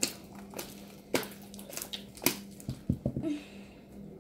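Homemade glue slime being stretched and squeezed by hand, giving a series of sharp wet pops and crackles, roughly one every half second, as trapped air bursts out of it.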